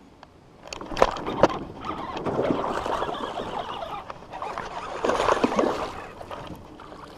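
Hooked smallmouth bass thrashing and splashing at the surface beside a small boat while it is played in on the line, with two sharp knocks about a second in.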